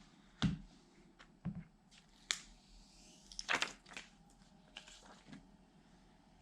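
Handling of a new iPhone 11 and its box during unboxing: about half a dozen short taps and clicks with some light rustling, spread out over the few seconds.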